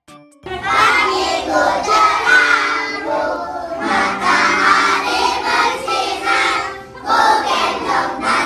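A class of young schoolchildren singing a song together in unison, starting about half a second in, with a short pause between phrases near the end.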